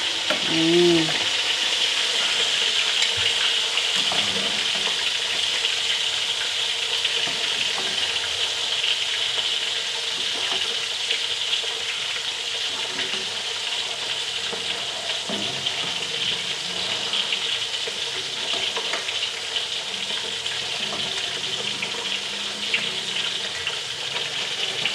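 Fish frying in hot oil in a wok: a steady sizzle, with a few light clinks of a metal slotted ladle against a pot.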